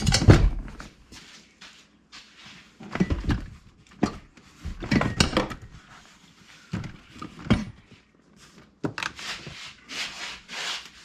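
Rear seat of a 2006 Jeep Grand Cherokee being lifted and pulled out of the car, with a series of separate clunks and thumps, then rubbing and scraping near the end.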